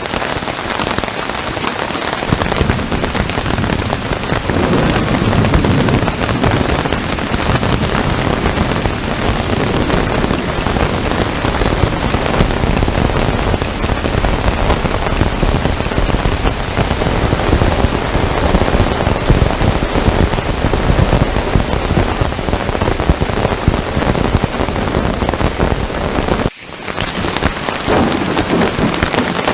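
Heavy rain pouring steadily, with a low rumble of thunder through the first half. Near the end the sound cuts out for an instant and swells back in.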